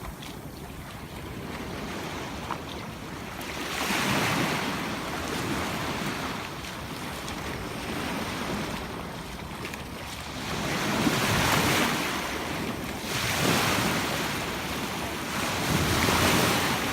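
Sea surf breaking on a beach: waves wash in as rushes that swell and fade every few seconds, with wind rumbling on the microphone.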